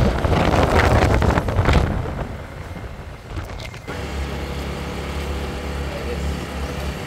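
Wind rushing over the microphone on a moving motorbike, mixed with engine and road noise, loudest for the first two seconds. About four seconds in, it cuts to a steady low engine drone.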